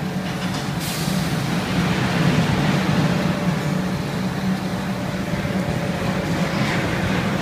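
Electric blower fans keeping inflatable bounce houses and slides inflated, running with a steady low hum and rushing air.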